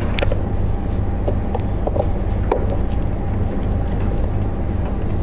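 Steady low rumbling background noise, with a few light clicks of a power cable being handled at the back of a computer monitor.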